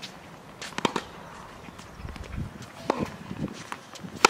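Tennis ball struck by a racket and bouncing on a hard court: sharp pops about a second in and about three seconds in, and the loudest one, a forehand strike, near the end, with footsteps on the court in between.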